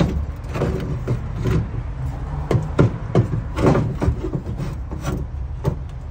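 Metal fuel filler neck being twisted and pushed into the rubber connecting hose on a 1966 Mustang's gas tank: a string of irregular rubbing scrapes and short knocks as the pipe is worked into place.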